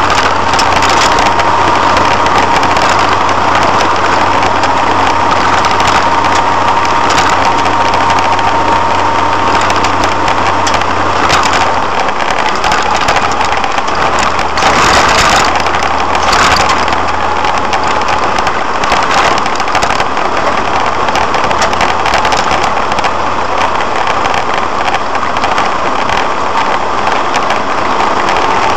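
Vehicle driving along a gravel road, heard from inside the cab: a steady engine hum under the constant rush of tyres on gravel, with a few knocks and rattles from bumps about halfway through.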